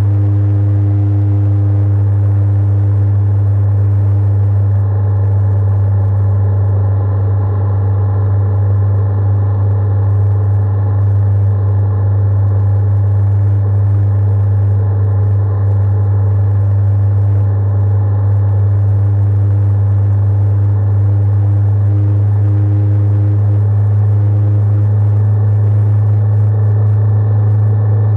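Honda 400X motorcycle's parallel-twin engine running at a steady cruise: a loud, even, low drone that holds its pitch throughout.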